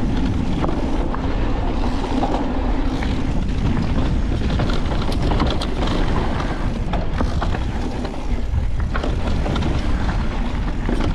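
Mountain bike riding fast down a rocky dirt trail: tyres rolling over dirt and rocks, with frequent clicks and rattles from the bike over a steady rumble of wind on the microphone.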